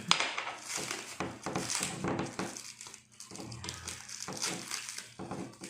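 Rustling and light clicks of a katana and its wrapping being handled, with one sharp knock right at the start.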